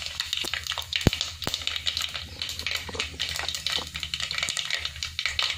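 Mustard seeds, urad dal and dried red chillies frying in hot coconut oil in a clay pot: a dense sizzling crackle of popping mustard seeds, with a few sharper pops, the loudest about a second in.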